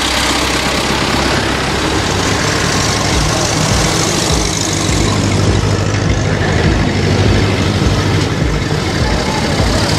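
Small vintage tractor engine running as the tractor drives close past, a steady low hum that grows strongest about halfway through. A car goes by near the end.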